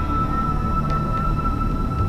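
Background music of slow, long-held notes over a low drone, with no beat.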